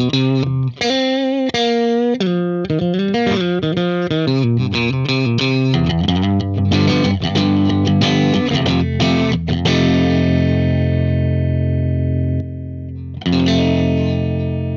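Overdriven Telecaster-style electric guitar played through a Universal Audio Lion '68 Super Lead amp emulator pedal, with a Teletronix LA-2A compressor pedal in front set to its brick-wall limiter setting. It starts with a quick picked riff, then chords are struck and left ringing, and a last chord is struck near the end.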